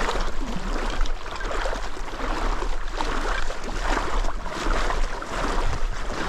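Water splashing and sloshing without a break, with a steady low rumble underneath.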